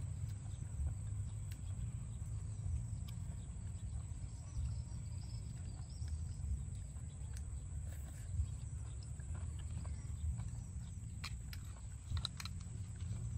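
Close-miked eating of steamed snails: chewing and wet mouth sounds over a steady low rumble, with occasional sharp clicks of shell against the pin or spoon, most of them near the end.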